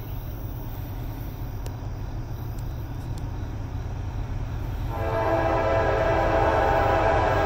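Lead diesel locomotive's horn, a GE AC44C6M on a Norfolk Southern freight, starting about five seconds in as the train nears a grade crossing. Under it is the steady low rumble of the approaching diesel locomotives, growing louder.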